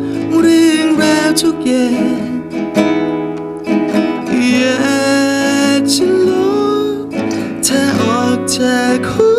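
A man singing a song while accompanying himself on a nylon-string classical guitar, with the voice carrying the melody over the plucked and strummed chords.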